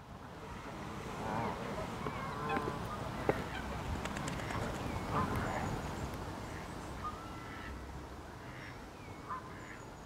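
Outdoor park ambience: scattered short bird calls over a steady low rumble.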